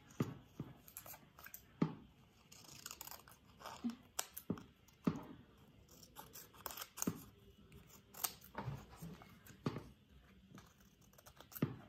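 Small scissors snipping a piece of paper: a string of short, irregular snips, quiet and close.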